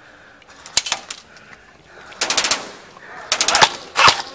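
Airsoft guns firing in short full-auto bursts of rapid shots: a couple of single shots about a second in, then bursts about two and a quarter and three and a half seconds in, and another starting near the end.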